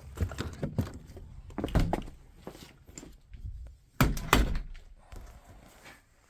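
Several knocks and thumps of things being handled, the loudest two coming close together about four seconds in.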